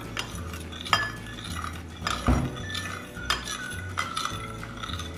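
A kitchen utensil clinking and knocking against cookware during stirring and seasoning, with a few sharp clinks, the loudest about a second in and just past two seconds. Soft background music plays underneath.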